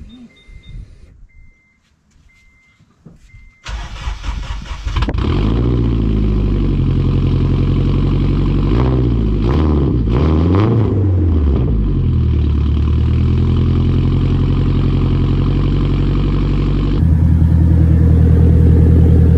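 Turbocharged K20 four-cylinder of an Acura RSX Type S through a Tomei titanium exhaust. A few short electronic beeps come first; about four seconds in the engine cranks, catches and settles to a steady high idle. It is blipped a few times in the middle, rising and falling in pitch, and near the end the exhaust sound gets louder and deeper.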